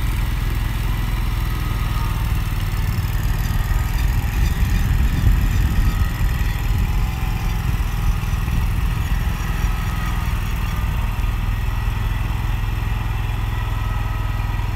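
Engine of a 26-horsepower petrol Walker ride-on mower with grass handling system, running steadily while its high-dump lift raises the full grass catcher to empty it. The engine gets louder for a few seconds about four to seven seconds in.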